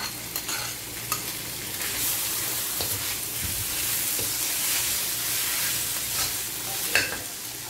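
Leftover vegetable stew with tempeh, tofu and chicken sizzling in oil in a stainless steel wok, while a metal spoon stirs and scrapes against the pan with light clinks and one sharper clink near the end.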